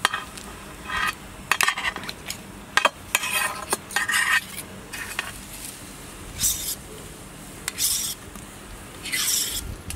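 A knife scrapes along metal skewers, pushing grilled turkey hearts off onto a glazed clay platter. It comes as a string of short metallic scrapes, about one or two a second with gaps between, and a few light clicks of metal and meat on the dish.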